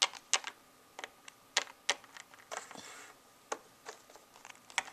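Small plastic toy figures clicking and tapping against a wooden tabletop as they are handled and moved: irregular light clicks, a dozen or so, with a brief soft rustle near the middle.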